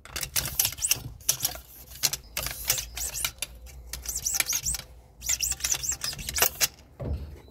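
Cleaning-rod scraper being worked back and forth inside an RPG-7 launcher tube: a run of metallic scraping strokes and clicks, some with short high squeaks, as the bore is scraped clean of burnt propellant residue.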